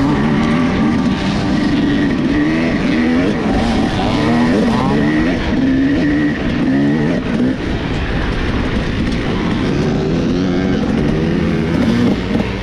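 Dirt bike engine running under throttle, its pitch rising and falling again and again as the throttle is opened and closed.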